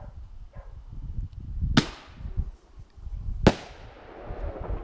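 Fireworks going off: two sharp bangs about a second and a half apart, the second trailing away in a long echo.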